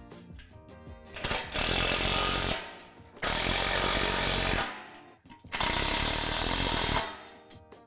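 Cordless impact driver hammering bolts tight into a steel playset tower pole, in three bursts of about a second and a half each, with short pauses between them.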